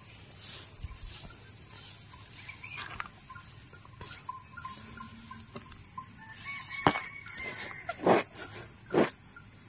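Steady high-pitched insect drone, with a few brief knocks and rustles in the last three seconds.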